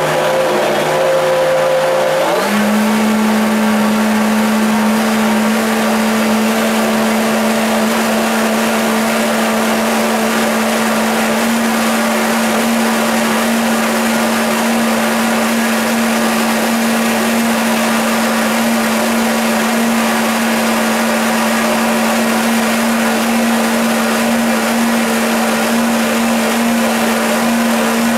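High-powered countertop blender running a timed 35-second cycle on a thick pumpkin-and-banana smoothie: a loud, steady motor whine that steps up in pitch about two seconds in, then holds.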